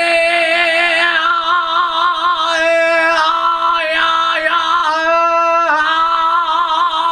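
A man sings one long, held, fairly high note with a raspy edge on a "hey" vowel, the upper tone wavering, with his voice not yet warmed up. The pitch slides sharply down at the very end.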